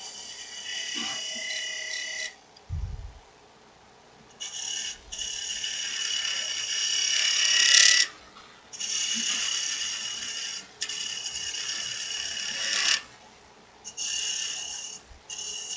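Detail gouge cutting spinning dry aspen on a wood lathe: a hissing, shaving sound with a faint high ringing note in it, coming as several separate cuts of one to a few seconds with short pauses between. A soft low thump about three seconds in.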